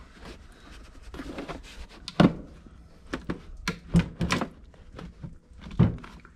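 Parts being handled in a snowmobile engine bay: scattered sharp knocks and clanks of hard parts and tools, the loudest about two and four seconds in, with another near the end.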